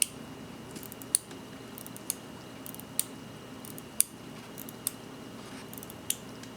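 Sharp little metallic clicks, about one a second, as the crown of a vintage hand-wound watch movement is worked with small tools; the crown is hard to grip and the clogged movement resists winding.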